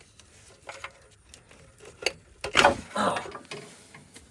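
Pliers clicking and scraping on a spark plug wire boot and its aluminum heat shield as the boot is twisted and pulled off the plug, with a louder scraping rush about two and a half seconds in.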